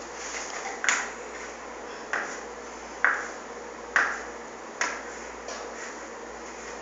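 Five sharp taps or clicks, roughly one a second, each ringing briefly, with a weaker sixth near the end.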